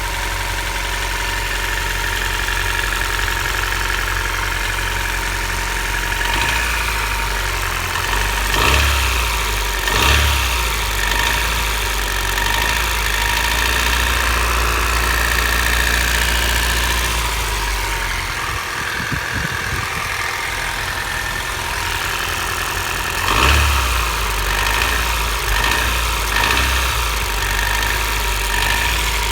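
Honda B16A2 1.6-litre DOHC VTEC four-cylinder engine idling from cold, with a knock and rattle ("stuk-tresk") that shows on a cold engine; it rises briefly three times.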